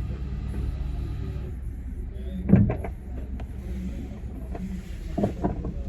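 Steady low rumble of a car on the move, heard from inside the cabin. A short, sharp louder sound comes about two and a half seconds in, and a smaller one near the end.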